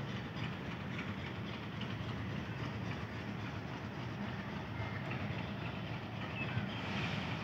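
Train moving on the tracks through a railway yard, a steady low rumble of the locomotive and wagons running on the rails.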